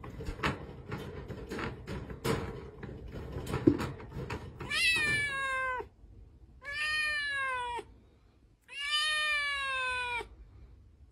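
Kitten meowing three times, each meow long and dropping in pitch at its end, after several seconds of knocking and rattling as it paws at the bars of its wire cage.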